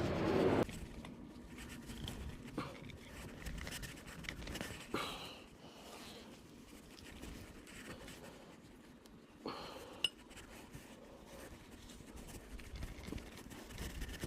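Faint scraping and light metallic clinks of scooter drive-train parts and tools being handled, with one sharp click about ten seconds in. It opens with a brief louder noise that cuts off abruptly.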